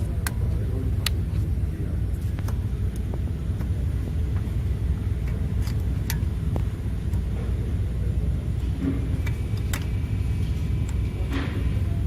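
Steady low rumble of a running vehicle, with scattered faint clicks at irregular intervals.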